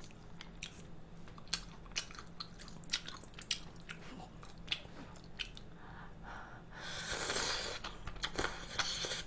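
A person chewing malatang noodles close to the microphone, with small wet clicks and smacks throughout. About seven seconds in there is a longer slurp as more noodles are drawn into the mouth.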